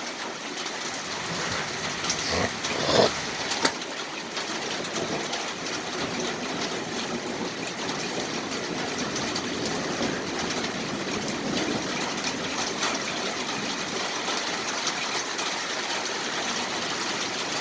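Rain and small hail falling during a hailstorm: a steady hiss peppered with fine ticks of hailstones striking, with a few louder knocks about two to four seconds in.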